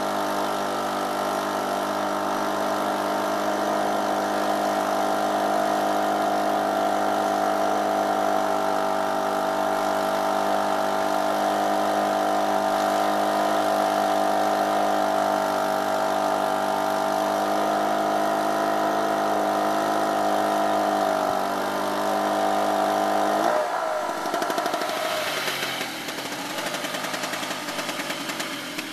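Small 63cc two-stroke petrol generator engine running at a steady speed. About 23 seconds in the sound changes abruptly to a rougher, less even and somewhat quieter engine note.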